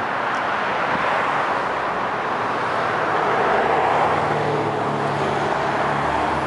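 Road traffic noise: a steady rush of passing vehicles, with a low engine hum joining about halfway through.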